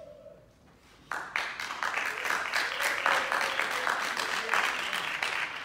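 Audience applauding, breaking out suddenly about a second in as dense, rapid clapping and fading away near the end.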